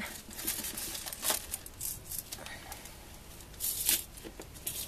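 Two glued layers of coated cardboard being peeled and torn apart. It comes as a few short tearing, scraping bursts, the loudest near the end.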